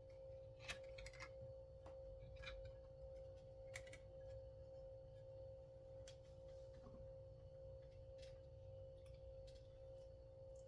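Near silence: a steady electrical hum with a low rumble, and a few faint, light clicks scattered through it.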